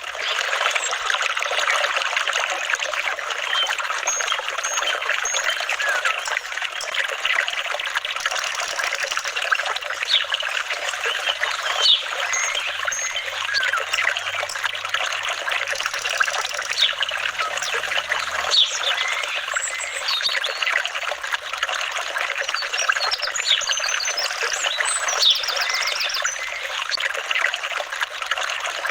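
Flowing water trickling and babbling steadily.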